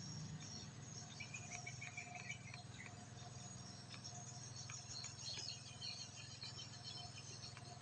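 Faint outdoor ambience of insects chirping in short, high trills over a low steady hum.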